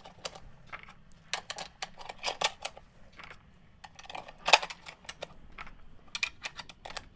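6.5 Creedmoor cartridges being loaded into an AICS-pattern rifle magazine: a string of irregular metallic clicks of brass against the magazine, the sharpest about four and a half seconds in.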